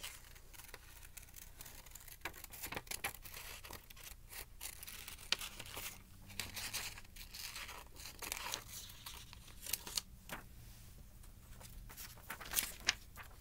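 Scissors cutting a small circle out of a sheet of paper: irregular short snips mixed with paper rustling as the sheet is turned.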